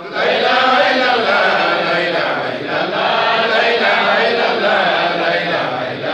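A large group of men chanting together, many voices overlapping in a loud, dense chant.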